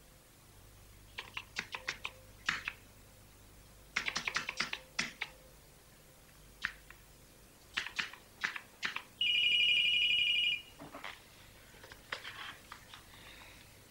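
Keys of a home computer keyboard clattering in short bursts of typing. About nine seconds in, a telephone gives one electronic trilling ring lasting over a second, the loudest sound here.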